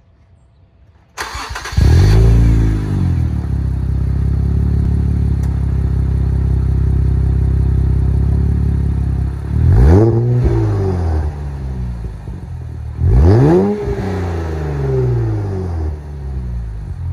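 Infiniti Q60's twin-turbo V6 through a 3-inch MBRP cat-back exhaust on stock downpipes: started about a second in, flaring up and settling to a steady idle, then revved in two quick throttle blips.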